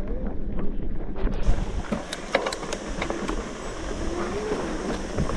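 Wind buffeting the microphone and the rattle of a mountain bike rolling over a rough trail, with a few sharp knocks about two to three seconds in.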